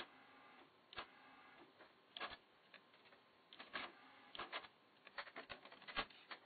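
Faint mechanical clicks and clunks from a Pioneer T-818 cassette deck's transport buttons and tape mechanism as it is operated, with a run of quicker clicks near the end.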